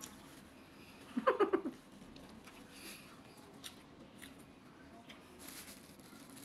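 Faint rustling and light clicks of paper being handled at a table, with a short hummed vocal sound about a second in.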